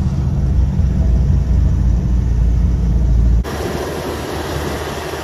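Truck on the move: a steady low rumble of engine and road noise. About three and a half seconds in it cuts abruptly to a thinner, hissing road noise.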